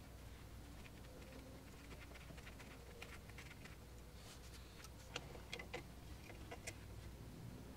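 Faint metal clicks of a flare nut wrench and the brake line's flare nut as the line is threaded and snugged into the new wheel cylinder, a handful of sharp ticks clustered in the second half, over a low steady hum.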